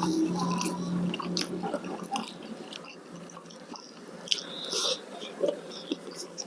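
Close-miked chewing and biting of food, with many small wet mouth clicks at an uneven pace.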